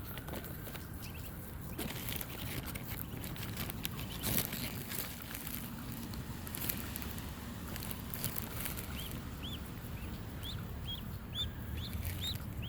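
Ducklings peeping: a string of short, high-pitched chirps starting about nine seconds in, over a steady hiss of rain with scattered taps.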